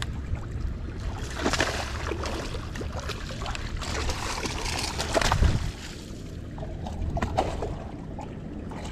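Water splashing and sloshing as a hooked snook thrashes at the surface while it is reeled in toward the boat. The loudest splash comes a little past halfway.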